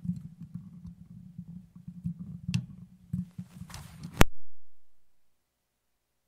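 Low electrical hum from an open studio microphone channel, with scattered clicks and knocks over it, ended by a sharp click a little over four seconds in, after which the line goes silent. The speaker puts the noise down to several microphones being open at once.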